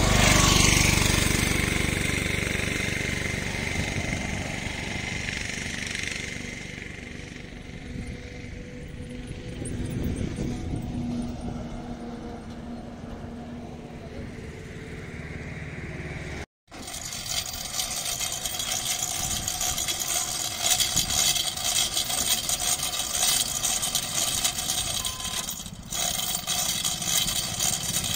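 Road traffic noise. An auto-rickshaw drives past close by, loudest in the first second and then fading, and a steady hum of passing vehicles follows. After a cut about halfway through comes a rougher, fluctuating outdoor noise with brief louder spikes.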